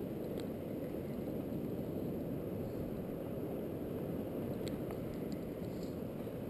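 Steady low rumble of wind on the microphone, with a few faint ticks about five seconds in.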